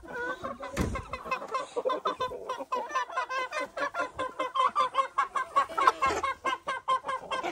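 A flock of chickens clucking, many short calls overlapping without pause. A low thump about a second in.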